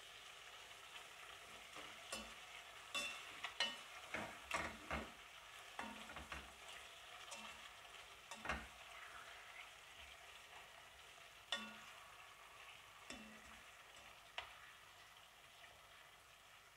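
Chicken thighs frying in oil in a pot, a faint steady sizzle, while a spoon stirs them, with scattered clicks and scrapes against the pot.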